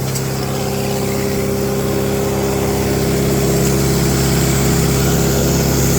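Lincoln SA-200 welder's engine running steadily just after being coaxed to start with ether, a little louder after about three seconds.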